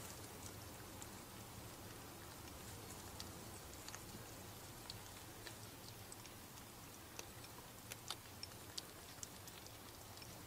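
Ferret kits eating dry kibble from a ceramic bowl: faint, irregular crunches and clicks over a low steady hiss, coming more often in the second half.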